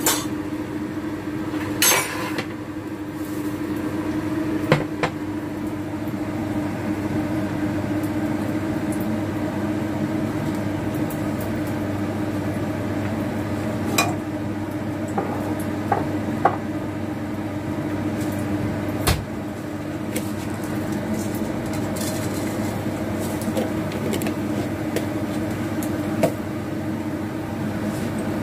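A steady mechanical hum with a constant low tone runs under scattered clinks and knocks of a frying pan and cooking utensils.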